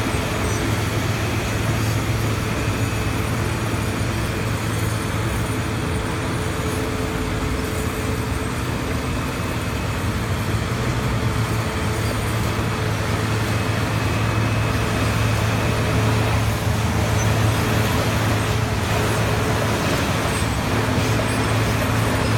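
Asphalt milling machine at work, taking up old pavement: a steady, loud heavy-diesel drone with a constant low hum and dense noise, unbroken throughout.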